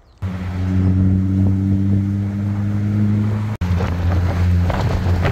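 Mini convertible driving with the roof down: the engine hums steadily under wind buffeting on the microphone. The sound breaks off for an instant about three and a half seconds in, then carries on with more wind noise.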